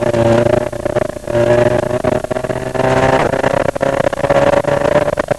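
Off-road desert race car engine running hard, heard from inside the car, its note dipping and climbing again a couple of times, with frequent sharp knocks and rattles over it.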